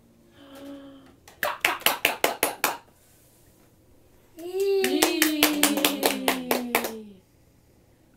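Rapid hand clapping, about six claps a second, in two runs: a short one between one and three seconds in, and a longer one from about four and a half seconds, over which a voice holds a long, falling vocal sound.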